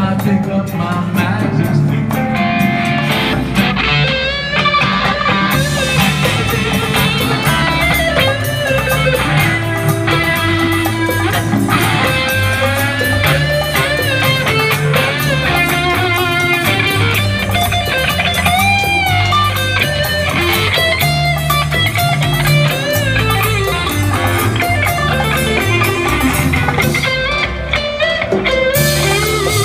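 Live Latin rock band playing an instrumental passage: an electric guitar, a Paul Reed Smith through a Mesa amplifier, plays a lead line full of string bends and vibrato over bass and congas.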